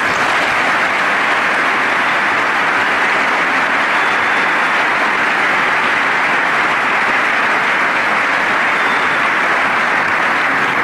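A large audience applauding, a dense and steady clapping.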